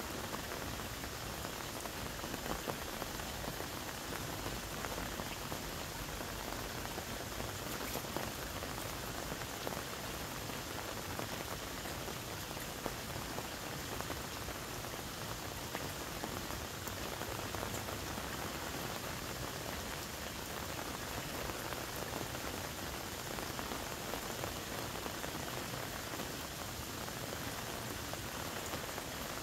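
Steady, even patter of falling water, with faint tiny crackles throughout.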